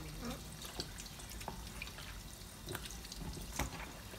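Bare hands rubbing a wet seasoning paste into raw chicken pieces: irregular wet squishing with small sticky smacks and clicks.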